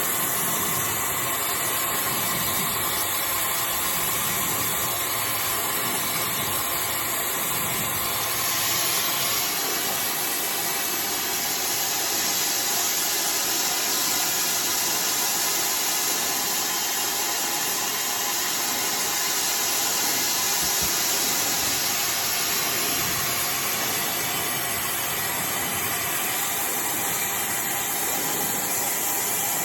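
iDryer AI Pro Style hair dryer blowing steadily, a constant rushing hiss of air; the hiss changes in tone about eight seconds in.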